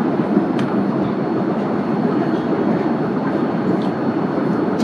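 Steady in-flight cabin noise of a Boeing 787-8: a continuous low rushing drone of airflow and engines, with a couple of faint clicks.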